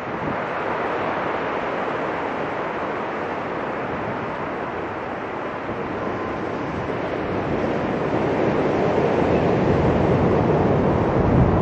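Ocean surf breaking and washing up a sandy beach: a steady rushing that swells louder about eight seconds in.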